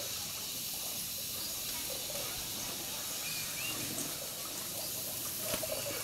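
Steady hissing trickle of water, with a single sharp click about five and a half seconds in.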